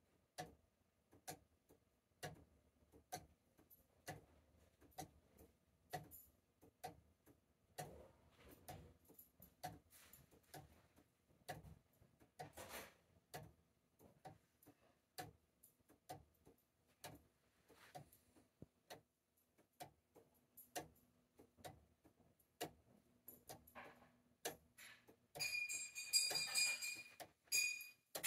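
3D-printed plastic gear clock ticking steadily: sharp clicks about once a second, with fainter ticks between. Near the end a louder hissing noise with a high steady whine comes in over the ticking.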